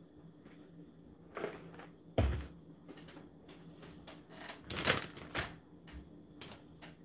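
Food packages and a plastic tub being set down and moved about on a wooden table: scattered knocks and clatter, the loudest a dull thump about two seconds in and another burst of clatter about five seconds in.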